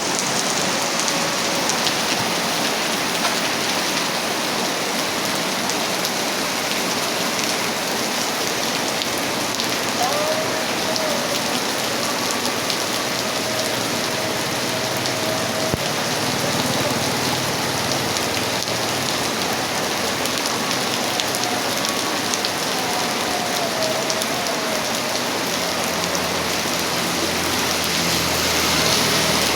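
Steady heavy rain pouring down and splashing on surfaces, with a faint low rumble rising near the end.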